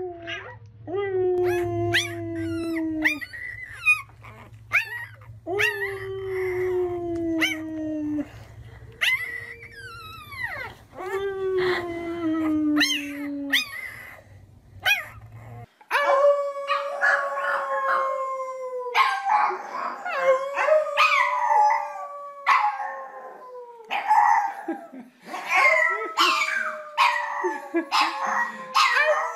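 A small puppy howling: three long howls, each sliding down in pitch. About halfway through, a pug takes over with longer, higher howls that also slide down, and many short sharp sounds between them.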